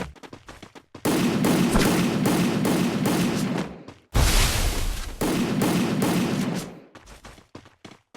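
Video-game automatic gunfire: two long bursts of rapid shots, each about three seconds, with scattered single shots before and after.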